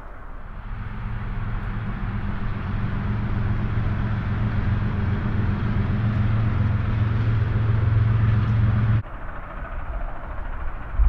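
A steady low mechanical rumble with a hum, like a large engine running. It grows louder over the first few seconds and cuts off abruptly about nine seconds in.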